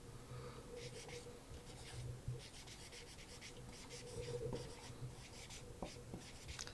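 Marker pen writing on a whiteboard: faint, irregular scratching strokes as letters are written out.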